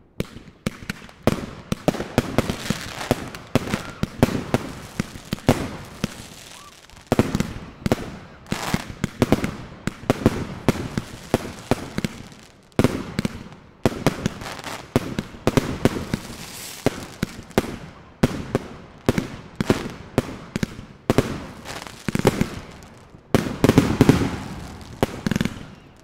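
Svea Fireworks consumer fireworks going off in quick succession: shots launching and shells bursting overhead, a dense run of bangs and crackles with a few short pauses.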